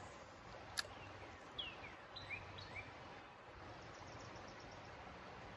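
Quiet outdoor background hiss, with one sharp click about a second in and a few short, downward-sliding bird chirps around two seconds in.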